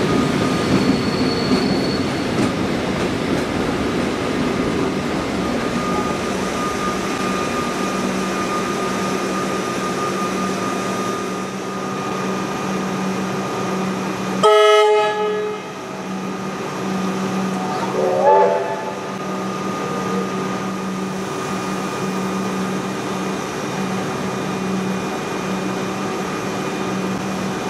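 An electric train passes close by with rolling wheel noise. After a few seconds this gives way to a steady electric hum. About halfway through, a train horn sounds once, loud, for about a second, and a short wavering sound follows a few seconds later.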